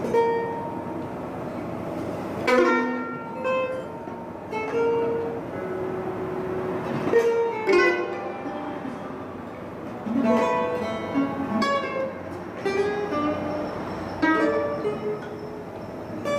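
Freely improvised plucked-string music: a mandolin picked in short, irregular runs and clusters of notes, with an electric guitar through a small amp.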